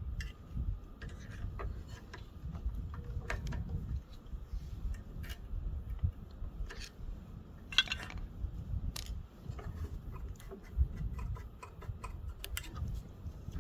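Irregular light metallic clicks and taps of small hand tools working on a Briggs & Stratton engine's cylinder head, over a low rumble.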